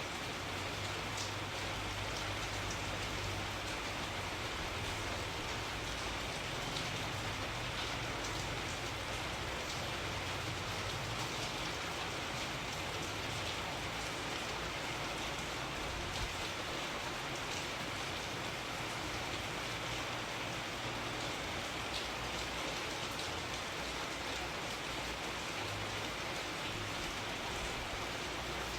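Steady rain falling, an even hiss with scattered drop ticks and a soft low rumble underneath.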